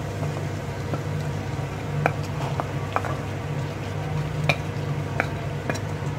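Chopped onions being scraped off a plate with a spatula into hot oil in a steel pan, sizzling, with the spatula clicking sharply against the plate and pan about half a dozen times over a steady low hum.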